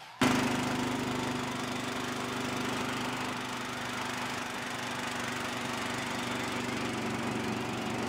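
Riding lawn mower's small gasoline engine running steadily as the mower is driven, heard from the driver's seat. It cuts in suddenly just after the start.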